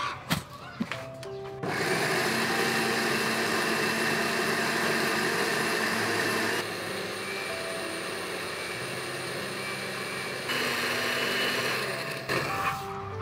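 Electric blender grinding fresh yellow corn kernels into batter. After a few clicks and knocks it switches on about a second and a half in, runs steadily, goes quieter for about four seconds in the middle, comes back louder, and cuts off about a second before the end.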